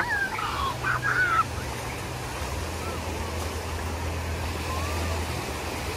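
Small sea waves breaking and washing over shallow sand, a steady surf hiss, with wind rumbling on the microphone. A few brief high cries sound in the first second and a half.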